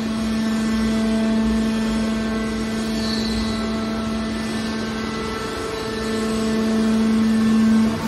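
Hydraulic scrap metal baler running: a steady motor-and-pump hum with one strong pitch, swelling louder over the last couple of seconds and cutting off sharply at the end.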